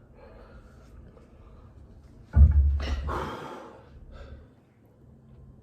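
A sudden loud, breathy exhale about two and a half seconds in, fading over a second or so, from a person whose mouth is burning from hot wings.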